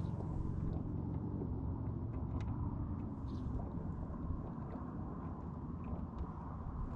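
Boat motor running with a steady low rumble, with a few faint ticks over it.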